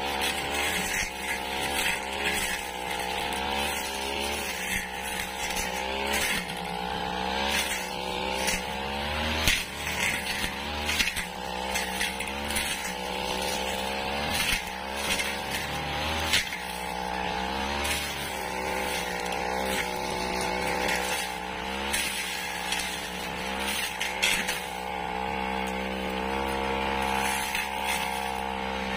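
Backpack petrol brush cutter running under load, its engine pitch wavering up and down as the metal blade cuts through dry grass and weeds, with a few sharp knocks along the way.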